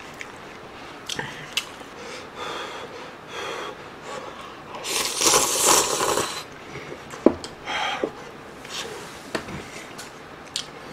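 A person slurping ramen noodles from army base stew, one loud breathy slurp of about a second and a half around the middle, with chewing and a few sharp clicks of spoon and chopsticks around it.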